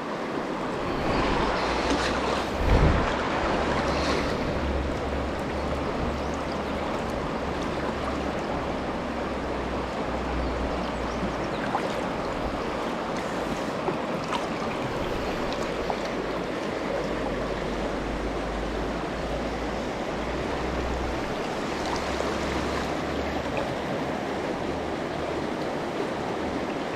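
River current rushing steadily through a riffle, with wind buffeting the microphone in a low rumble that comes and goes, and a brief knock about three seconds in.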